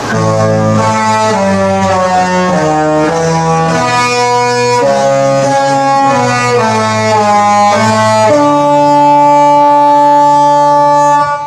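Disney Fantasy cruise ship's musical horn playing a Disney tune, loud steady notes changing every half second to a second. It ends on a long held note of about three seconds that cuts off sharply.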